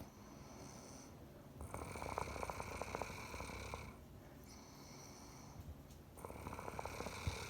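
A woman snoring in her sleep: two rattling snores, the first starting about two seconds in and the second about six seconds in, with softer breathing between them.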